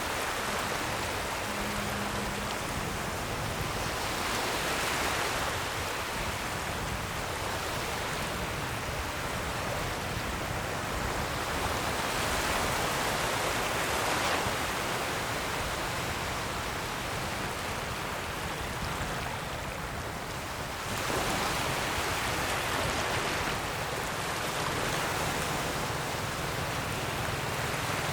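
Ocean waves breaking and washing on the shore: a steady hiss of surf that swells and ebbs every several seconds, with a louder surge about three quarters of the way through.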